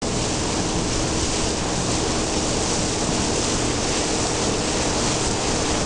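Steady rush of wind on the microphone and water from a boat underway, with a low hum underneath.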